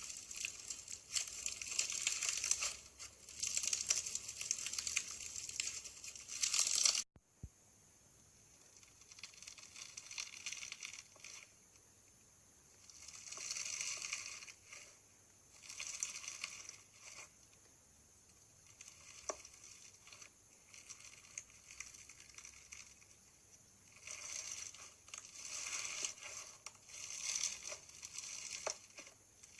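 Crunchy slime being played with, crackling and crinkling in bursts. It cuts off suddenly about seven seconds in, and after that the crackles come in separate bursts a second or two long over a faint steady hiss.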